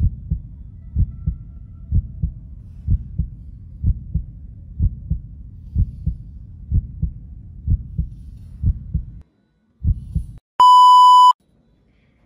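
Heartbeat sound effect: deep double thuds about once a second, which stop about nine seconds in and return briefly once. A single loud, high beep lasting under a second follows near the end.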